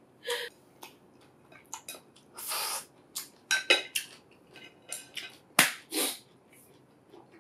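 Wooden chopsticks clicking and scraping on a ceramic plate while the last of the food is picked up: a run of sharp clicks with one short scrape.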